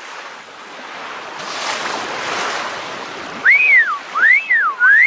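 Wind and sea noise rushing past the microphone, then three loud human whistles, each sliding up and back down, in quick succession near the end.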